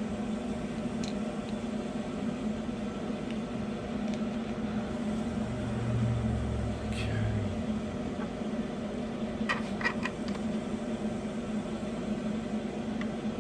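A steady low mechanical hum. A few faint clicks and taps come from small parts being handled while a motor is screwed into an RC snowplow.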